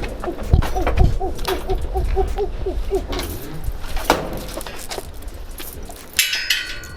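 Cat crying in a rapid series of short meows that rise and fall, about four a second, for the first few seconds. A brighter cry comes near the end, over a low rumble with a few knocks.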